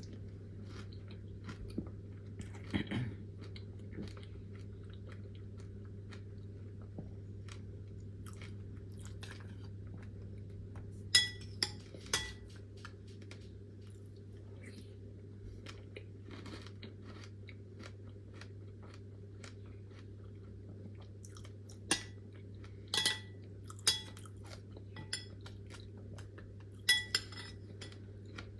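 Close-miked chewing and crunching of freeze-dried fruit, many small crisp crunches throughout. A few sharp, ringing clinks of a utensil on dishware come in clusters, about a third of the way in, three-quarters of the way in and near the end.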